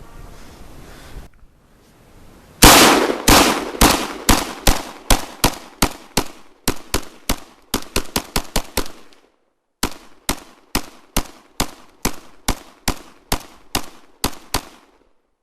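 Century Arms PAP M92 semi-automatic AK-pattern pistol in 7.62x39mm fired in rapid succession: two long strings of sharp shots at about three a second, separated by a pause of under a second.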